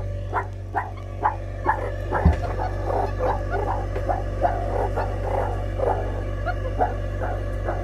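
Meerkats calling: short, pitched chirps repeating a few times a second, turning into a denser chatter after about two seconds, over a steady low hum, with one low thump about two seconds in.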